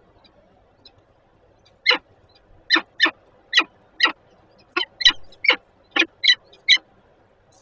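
Peregrine falcon calling at the nest ledge: a run of short, sharp calls, about two a second, starting about two seconds in. The calls go with the mate arriving with food for the bird in the nest box.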